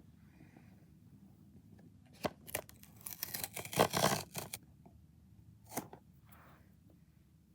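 Blind-box packaging being torn open by hand: a burst of crackling, tearing noise about two to four seconds in, then a single click near six seconds.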